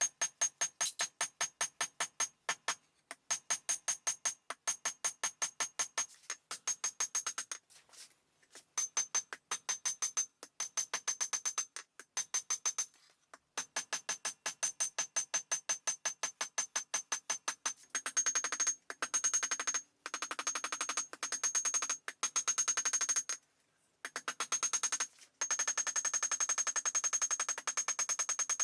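Rapid, even hammer blows on an anvil, drawing out a bar of horseshoe steel to round stock. Each strike leaves a high ringing tone, and the hammering stops briefly several times.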